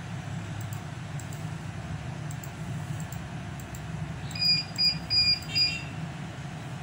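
Four short electronic beeps in quick succession about two-thirds of the way in, over a steady low hum.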